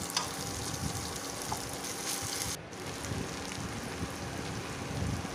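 Oil sizzling steadily in a frying pan of vegetables and boiled rice, with a brief break about halfway through.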